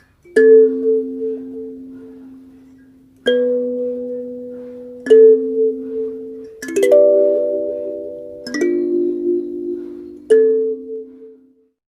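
21-key XINQIDIAN koa-wood kalimba played slowly: six plucked notes and chords, each tine ringing and fading before the next, the last dying away near the end.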